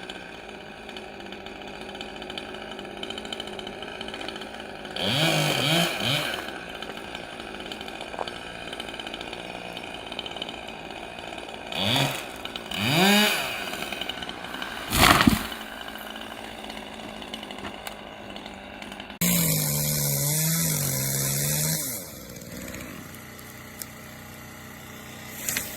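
Chainsaw idling low and blipped up in short rising revs, once about five seconds in and twice around twelve to fourteen seconds, with a sharp thump just after. Later it runs at a steady high speed for about three seconds, cutting through the treetop, then drops back.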